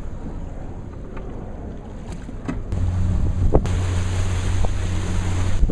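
Wind buffeting the microphone on a boat. About halfway through, a steady low motor hum comes in and gets louder, and there is a single sharp knock soon after.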